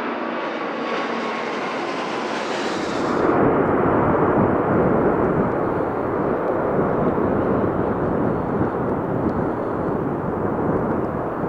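Airbus A380's four turbofan engines at takeoff power as the airliner climbs overhead. A whine with a slightly falling tone comes first; about three seconds in, the hiss drops away and a loud, deep rumble takes over as the aircraft passes and climbs away, fading only slowly.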